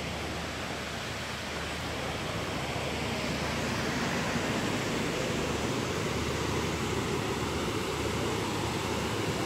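River water rushing over a low weir: a steady noise that grows louder about three seconds in and then holds.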